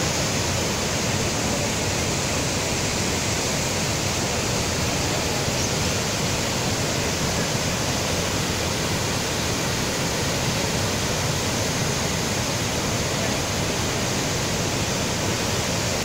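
Steady roar of a large waterfall: the Narmada River plunging over the broad, multi-ledged Dhuandhar Falls into a churning pool, a constant rush of water.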